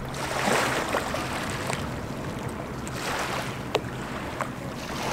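Outdoor lakeshore ambience: a steady rush of wind and small waves lapping on a gravel shore, with a few faint clicks.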